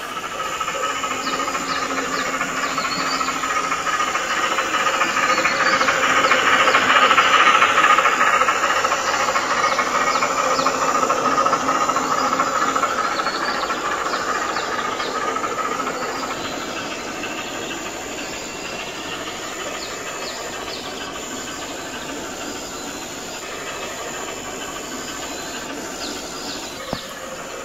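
Steam-hauled goods train passing: a steady hiss and running noise that swells to its loudest about seven seconds in, then slowly fades.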